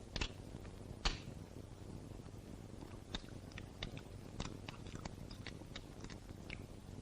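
A run of short, sharp clicks and ticks over a low steady hum, two louder ones in the first second and about a dozen lighter ones spread through the rest.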